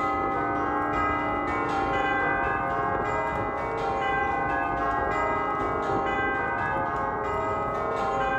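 Christ Church Rossett's peal of eight tubular bells from 1849, rung by hammers. Notes are struck about twice a second, and each rings on under the next, building a dense wash of overlapping bell tones.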